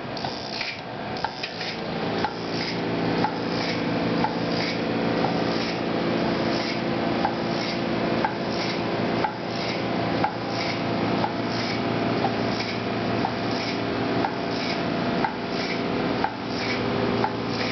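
Pneumatic pusher of a test rig tapping a polymer nanogenerator film over and over, each stroke a short knock with a puff of air hiss, at a regular rate of about one and a half strokes a second. A steady hum joins about two seconds in.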